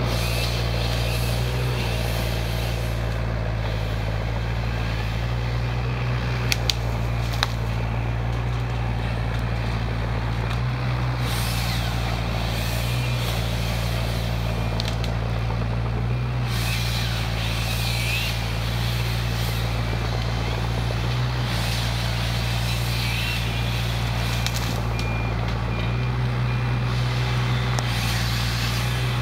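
Mini hydraulic excavator's diesel engine running in a steady drone as it works a saw head through pine branches. A few sharp cracks come about six to seven seconds in.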